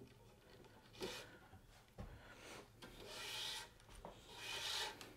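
Tennis racquet string being pulled through the string bed, rubbing against the strings it crosses as a faint swishing hiss. There are two longer pulls in the second half, after a brief one about a second in.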